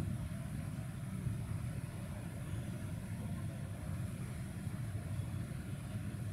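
Steady low rumble of background room noise with a faint high hiss.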